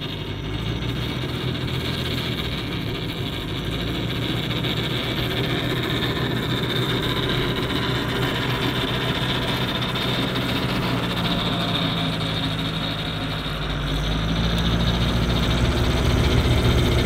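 New Holland L85 diesel tractor running a PTO-driven two-stage snowblower while clearing snow: a steady engine drone mixed with the whoosh of the blower. It grows louder in the last few seconds.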